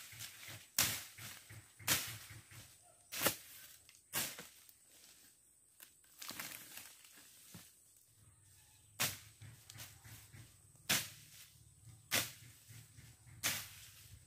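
Machete slashing through grass and ferns: sharp swishing chops about a second apart, five in quick succession, a pause of about four seconds, then four more.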